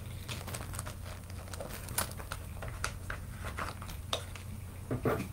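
Crinkling and scattered short clicks as jewelry pieces and their packaging are handled, over a low steady hum.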